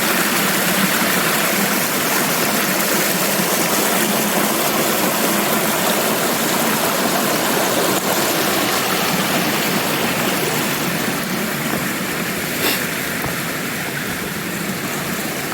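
Creek water rushing steadily over rocks, easing a little in the last few seconds, with a single sharp click near the end.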